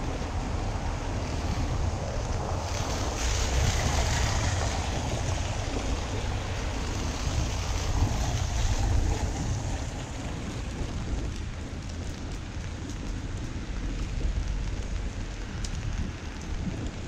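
Wind buffeting the microphone, a steady rushing noise with a heavy low rumble, gustier in the first half and easing after about ten seconds.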